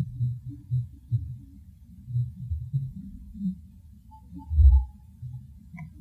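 A series of irregular low, muffled thumps and rumbles. The loudest and deepest comes about four and a half seconds in, with a few faint short higher-pitched tones around it.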